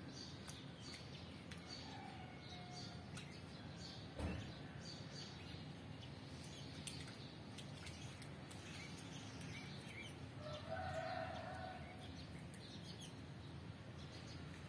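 Faint, repeated high peeping of a duckling, in short chirps. A single knock about four seconds in, and a lower, drawn-out call around eleven seconds.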